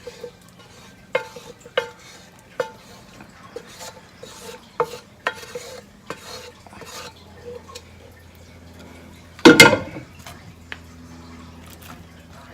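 A metal utensil tapping and scraping against a pan while glazed chicken is stirred and moved. The taps are irregular, each with a short ringing note, and there is one louder clatter about nine and a half seconds in.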